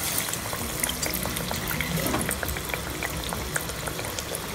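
A chana dal masala vadai frying in hot groundnut oil in a kadai, just after being slipped in: a steady sizzling hiss with many small crackles and pops.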